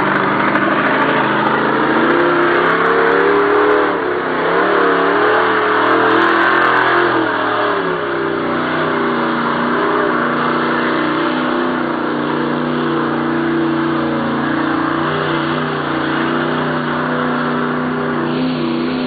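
Mud truck's engine revving hard under load as it churns through a deep mud hole, its pitch rising and falling for the first several seconds, then held high and steady from about eight seconds in.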